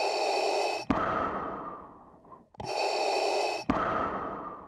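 Heavy, rhythmic breathing: a hissing breath of about a second cut off by a sharp click, then a longer breath that fades away, with the cycle repeating about every three seconds.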